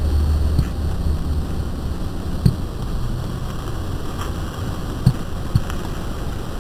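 A steady low rumbling noise from a lightly processed camcorder recording, with a few short sharp knocks: one about two and a half seconds in and two a little after five seconds.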